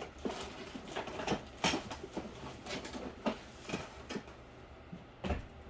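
Small objects being picked up and moved about while rummaging for something: irregular light clicks and knocks, with a duller thump about five seconds in.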